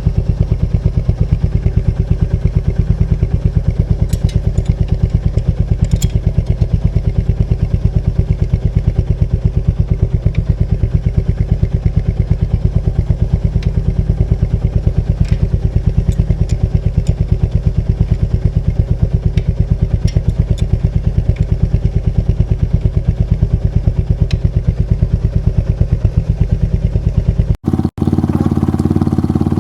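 Royal Enfield Meteor 350's single-cylinder engine running with an even, rapid exhaust pulse, with a few light clicks over it. Near the end the sound cuts out briefly and resumes as a smoother, steadier engine note.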